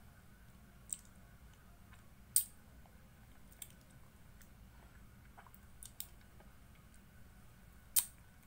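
Mouth clicks and lip smacks from licking and eating an ice lolly close to the microphone: a handful of short, sharp clicks, the loudest about two and a half seconds in and near the end.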